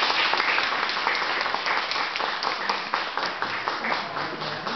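Audience applauding, many hands clapping at once, slowly dying down.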